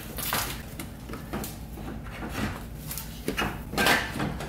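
Irregular knocks and scraping as a replacement radiator is worked up into place in the front of a VW Golf MK4, the radiator rubbing and bumping against the car's frame and brackets.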